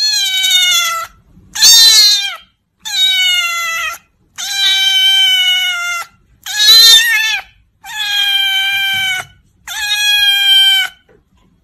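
Orange-and-white cat meowing loudly, seven drawn-out meows of about a second each with short pauses between, the second and fifth the loudest and highest-pitched.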